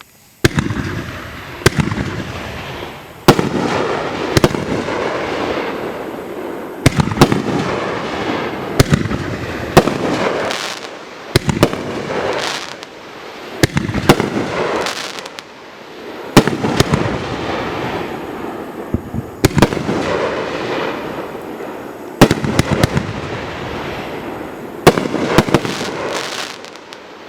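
2-inch, 500-gram consumer fireworks cake firing its shots one after another: sharp bangs every second or two, often in close pairs as each shell is launched and bursts, with a hissing, crackling wash between them.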